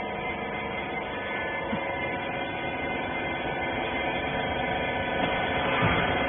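Rag compression baler's motor running with a steady hum, growing slightly louder near the end.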